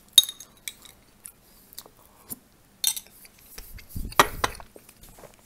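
A metal teaspoon clinks sharply against a glass bowl of strawberry jam just after the start, then scrapes and taps lightly as jam is scooped. Near the end come a few louder clatters and mouth sounds of eating.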